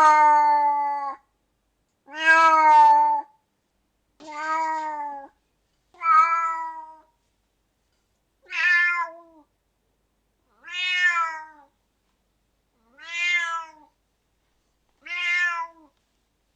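Siamese cat meowing: eight drawn-out meows, about one every two seconds, with silence between them. The first is already sounding at the start, and the later meows are shorter and softer.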